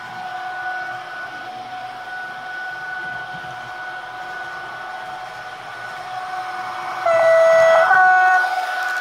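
Nusser Modell sound decoder in a Jägerndorfer H0 model of the ÖBB class 1116 Taurus electric locomotive, playing its running sound as a steady electric whine. About seven seconds in it sounds a loud two-tone horn, a lower note then a higher one, lasting about a second and a half.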